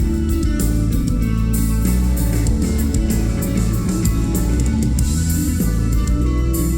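Live rock band playing loudly, electric guitars over drums with crashing cymbals, captured on a phone microphone in the audience.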